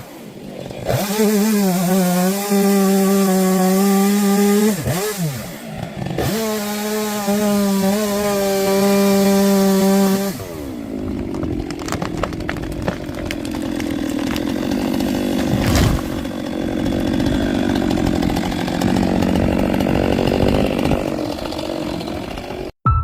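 Chainsaw running at high revs with a steady whine, its pitch dipping briefly twice; about ten seconds in it falls away to a lower, rougher running sound with scattered knocks, and it cuts off abruptly just before the end.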